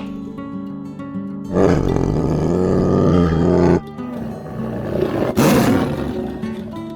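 A large animal roaring, one loud call of about two seconds that cuts off abruptly, then a second shorter call about five seconds in, over background music with steady plucked tones.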